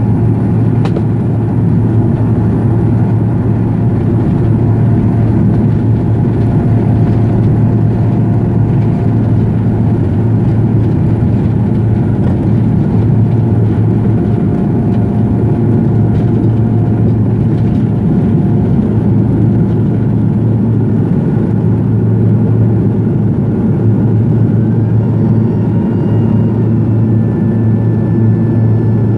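Pilatus PC-12's single Pratt & Whitney PT6A turboprop at takeoff power, heard from inside the cabin. It makes a loud, steady propeller drone with a deep hum over engine rumble, through the takeoff roll and lift-off.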